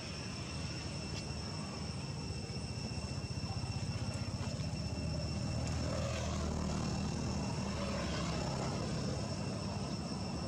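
Low drone of a distant engine, growing louder from about three seconds in and then holding steady, with a steady high-pitched whine over it.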